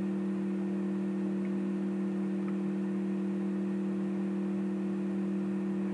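Steady electrical hum: a few low tones held unchanged over a faint hiss.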